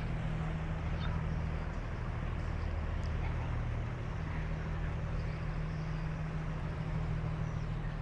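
A motor engine running steadily, a constant low hum with no change in pitch or level.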